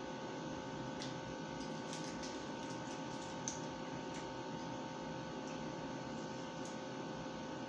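Steady electrical hum with faint scattered clicks and crackles of hands tearing apart roast chicken, most of them between about one and four seconds in.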